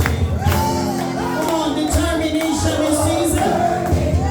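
Gospel worship music: a voice singing a wavering melody over sustained low instrumental notes and a regular percussive beat, in a reverberant hall.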